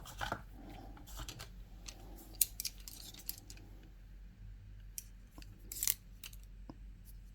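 Parkside precision screwdrivers and their plastic wall-mount holder being handled: scattered small clicks and light rattles, with a couple of sharper clicks about two and a half and six seconds in.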